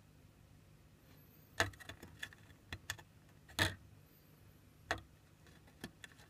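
About eight light, sharp clicks and taps at uneven intervals, the loudest about a second and a half in and again about three and a half seconds in, over a faint low hum.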